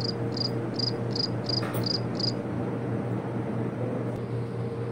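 Cricket chirping: a run of short, evenly spaced high chirps, nearly three a second, that stops a little over two seconds in, over a steady low room hum.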